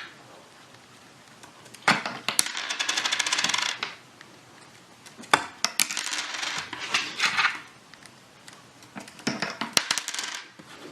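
Clinks and rattles of small hard objects in several bursts, with a fast rattle about two seconds in that lasts over a second, and single sharp clicks later on.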